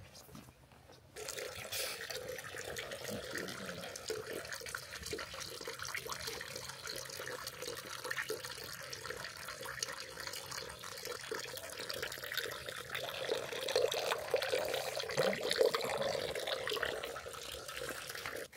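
Running water splashing steadily, a dense hiss with fine spatter that starts abruptly about a second in and cuts off at the end, a little louder near the end.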